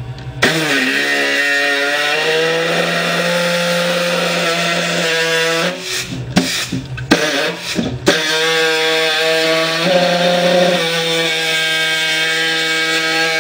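Pneumatic body saw cutting through the sheet-steel fender of a lawn tractor, its pitch sliding as the blade loads up. It stops about six seconds in, gives a few short bursts, then runs steadily again from about eight seconds.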